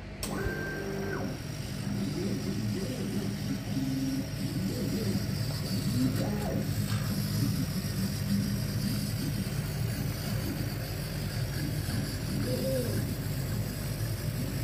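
Aeon Mira 9 CO2 laser cutter running a print-and-cut job: a steady machine hum, with the gantry motors whining and gliding up and down in pitch as the head traces curved outlines. A short high tone sounds about half a second in.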